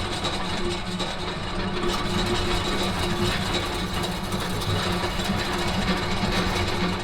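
Gearbox running steadily, a constant mechanical hum with a high whine over it.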